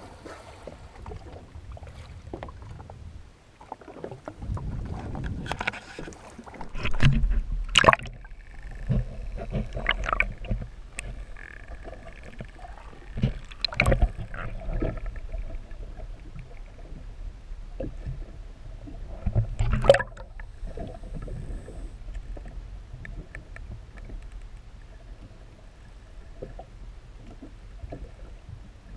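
Sea water sloshing and splashing around a camera held at and below the surface, with a low rumble and irregular knocks and splashes, the loudest about seven, fourteen and twenty seconds in.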